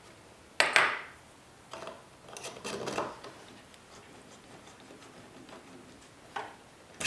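Workbench handling noises as a plywood sled and a small metal pin are handled: a sharp knock about half a second in, a cluster of clicks and scraping a couple of seconds in, and two lighter clicks near the end.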